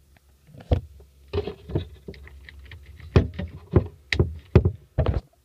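A string of irregular knocks, thumps and scraping clicks from plastic center-console trim being handled up close while its wiring plug is pushed into its socket.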